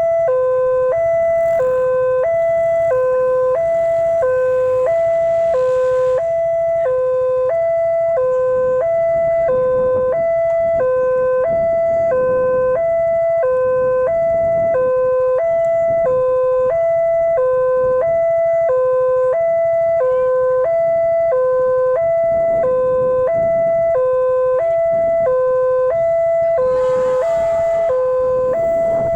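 Railway level-crossing warning alarm sounding a steady two-tone high-low signal, about one cycle a second, which warns that a train is approaching.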